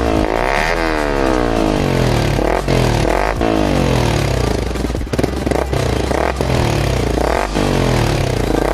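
Yamaha R15 V3 BS6's 155 cc single-cylinder engine revved up and down repeatedly through an Akrapovic slip-on silencer fitted with a dB killer, the pitch rising and falling with each throttle blip.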